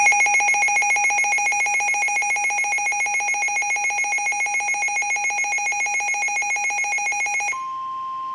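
Midland WR400 weather radio sounding its alert siren, a loud, rapidly pulsing tone. About seven and a half seconds in it gives way to the steady single-pitch warning alarm tone of the NOAA Weather Radio broadcast, which announces a warning.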